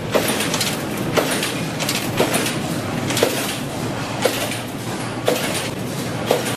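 Wire straightening and cutting machine running, its steady machine noise broken by a sharp clack about once a second as it cuts off each length of wire.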